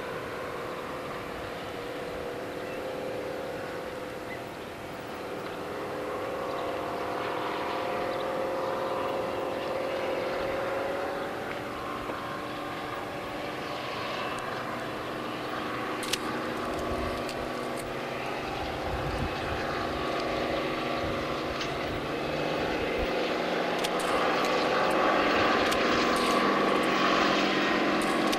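Class 55 Deltic diesel locomotive pulling a train under power, its Napier Deltic two-stroke engines making a steady, multi-toned engine sound that grows louder as it approaches.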